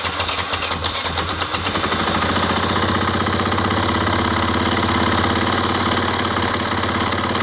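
Single-cylinder four-stroke engine of a 500 dirt bike running just after firing up while its throttle-body idle screw is turned in. It runs unevenly for the first couple of seconds, then settles into a steady idle, being set to about 1800 to 1900 RPM.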